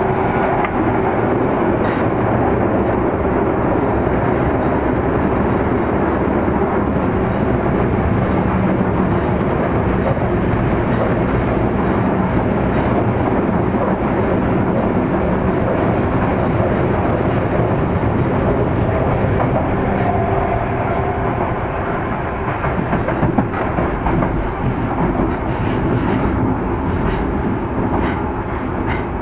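Osaka Metro 30000 series subway train running underground, heard from inside the car: a steady rumble of wheels on rail with a faint traction-motor hum and a few rail-joint clicks. It grows a little quieter over the last several seconds as the train nears Dobutsuen-mae station.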